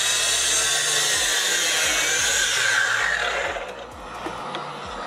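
DeWalt sliding compound miter saw running and cutting through a cedar 2x6, its motor whining under load. It is powered by a portable power station that is also carrying a running heat gun, and it is not happy under the combined load. The saw winds down about three and a half seconds in, leaving a quieter steady hum.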